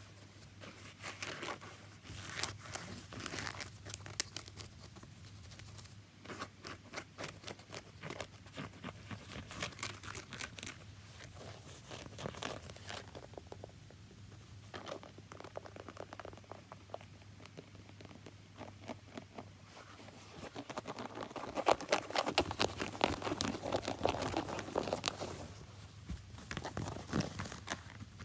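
Close-up tapping and scratching on a shoe: quick runs of small taps mixed with scraping strokes, getting louder and denser for several seconds about three quarters of the way through.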